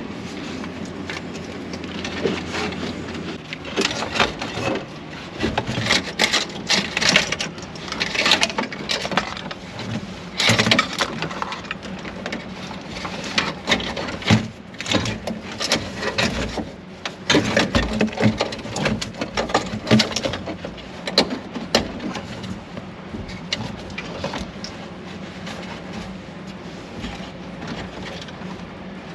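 Irregular rustling, scraping and clicking of old wiring and plastic parts being worked loose, cut and pulled from under a truck's dashboard, over a faint steady low hum.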